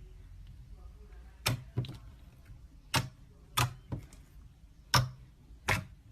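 Slime being worked by hand, giving about seven sharp clicking pops at irregular intervals.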